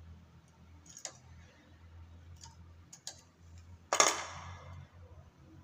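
Hand tools clicking against the metal needle bed of a chunky knitting machine as stitches are worked by hand: a few light clicks, then a louder metallic clank about four seconds in that rings briefly.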